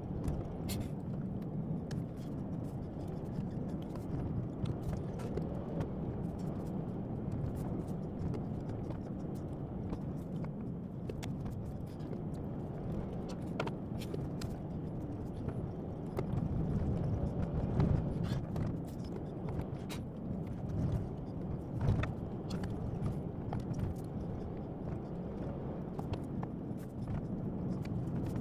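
Car driving on a winding mountain road: a steady low rumble of engine and tyres, with many small clicks and knocks scattered through it, swelling slightly past the middle.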